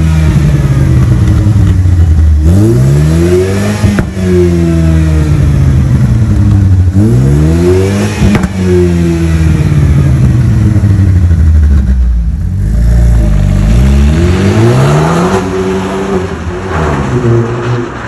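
Opel Astra OPC's 2.0-litre turbocharged petrol engine revved through its tuned sport exhaust. There are two long revs, each with a sharp crack at the top and a slow fall back to idle, then several quicker blips. Near the end the car pulls away and the sound fades.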